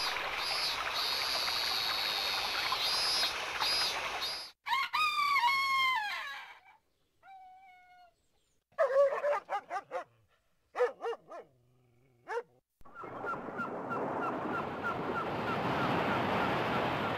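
Motorola MS150 mobile phone's built-in nature-sound ringtones, recorded straight from the phone's audio output: a stream's rushing with cicadas buzzing, then a rooster crowing about four and a half seconds in, a dog barking several times from about nine seconds, and waves washing with seabirds calling near the end.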